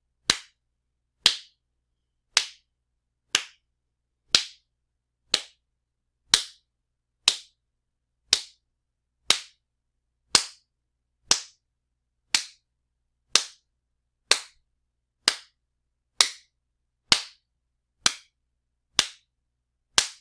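Strong wet slaps, one sharp smack about every second, each dying away quickly before the next.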